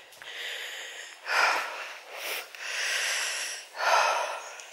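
A person breathing hard close to the microphone: a few audible breaths in and out, one of them longer, with no voice in them.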